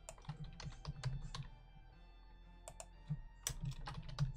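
Typing on a computer keyboard: irregular runs of keystrokes, with a lull of about a second in the middle.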